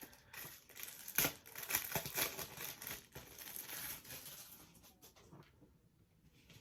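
Crinkling and rustling as a wig cap is handled and pulled on over braided hair, busiest in the first few seconds and fading away after about five seconds.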